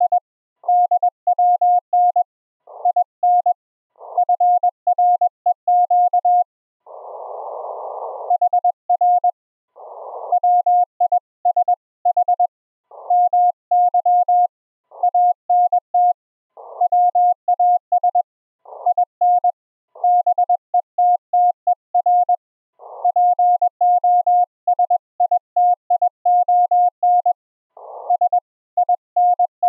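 Ham radio Morse code (CW): a single tone of about 700 Hz keyed in rapid dots and dashes at about 21 words per minute. Short bursts of hiss, the HF receiver's band noise, come between groups of characters, with the longest about seven seconds in.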